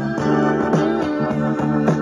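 Music with guitar and organ, played from a Sony F102 Walkman through a small portable speaker.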